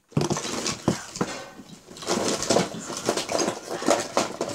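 Small hard objects knocking and clattering as they are rummaged through by hand, with a few sharp knocks near the start and denser, irregular clatter later on.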